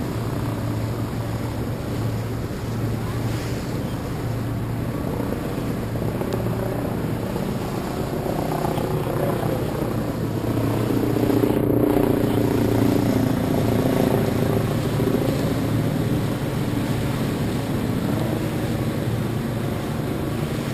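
A motorboat engine running steadily under a rush of wind and water, growing a little louder for a few seconds about halfway through.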